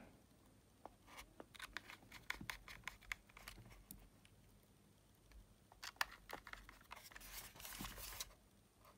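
Faint ticks and scrapes of a small precision screwdriver turning screws into the metal back cover of a Sony WM-EX900 Walkman, with light handling of the casing, in two spells of activity.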